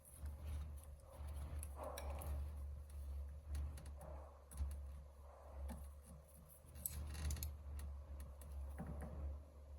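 Scattered light clicks and taps, like small metal parts or tools being handled, over a steady low hum.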